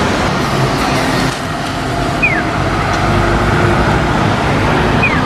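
Diesel engine of a Tosa Electric Railway K-MM116H route bus running as it drives through a junction, over steady road traffic. A short, high, falling chirp sounds twice, about three seconds apart.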